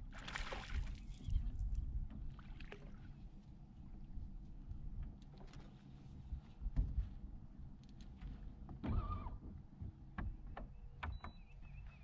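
Hooked largemouth-type bass splashing at the surface about half a second in as it is brought to the boat, then scattered light knocks and rattles on the boat deck while it is lifted out and handled, over water lapping at the hull.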